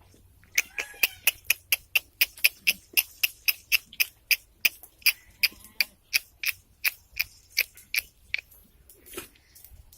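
A regular series of sharp clicks, about three a second, stopping about eight seconds in.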